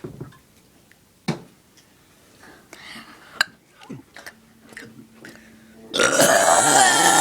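A girl burps loudly, starting suddenly about six seconds in, after a few soft clicks and rustles.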